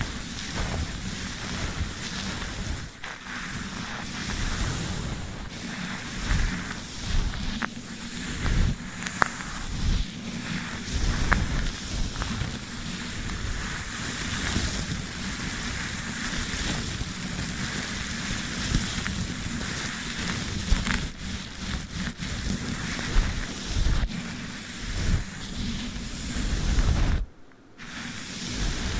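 Close-up scratching and rubbing of a brush and sticky tape against a microphone, a steady scratchy hiss with frequent low bumps and a few sharp clicks. It stops briefly near the end.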